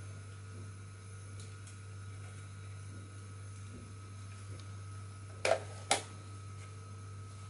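Two short knocks about half a second apart, near the end, as a handheld digital multimeter is set down on a tiled floor and its rotary dial is turned. A steady low hum sits underneath.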